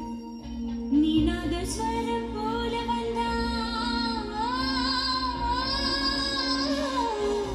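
Music: a woman singing long held notes that waver and glide, over a steady low drone.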